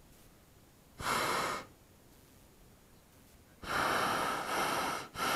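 Hot air balloon's propane burner firing in short blasts of rushing hiss: a brief one about a second in, then a longer one near the end, cut off for a moment and fired again at once.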